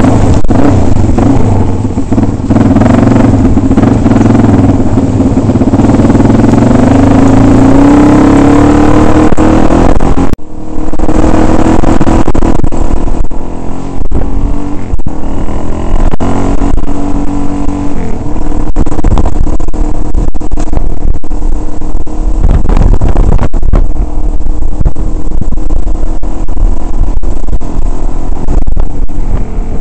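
Dirt bike engine running hard on a rough dirt track, loud throughout, with many short knocks from the bumps. Its pitch climbs steadily over the first ten seconds, then after a brief drop-out it rises and falls with the throttle.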